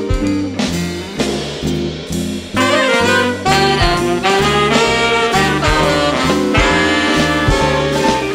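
Jazz ensemble playing an instrumental passage: upright bass and drums under piano, with saxophones and trumpet. The band gets louder and fuller about two and a half seconds in as the horns play together.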